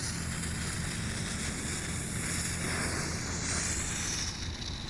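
Two lit smoke bombs hissing steadily as they burn, swelling briefly near the end, over wind rumbling on the microphone.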